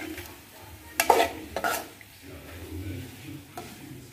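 Metal spoon stirring and scraping mashed potato through fried onion-tomato masala in a frying pan, mixing aloo paratha stuffing. A few sharper scrapes of the spoon against the pan come about a second in, again soon after, and near the end.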